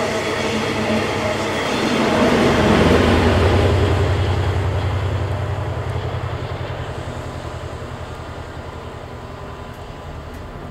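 TransPennine Express Class 68 diesel locomotive propelling its coaches past and away: the coaches rumble by on the rails, loudest about three seconds in, then the locomotive's low, evenly pulsing engine drone slowly fades as the train recedes.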